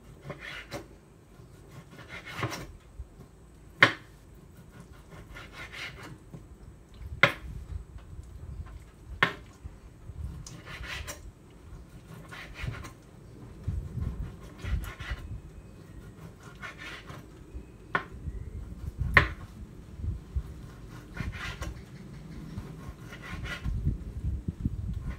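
Kitchen knife slicing raw pork on a wooden cutting board: repeated rasping strokes every second or two, with a few sharp knocks of the blade striking the board.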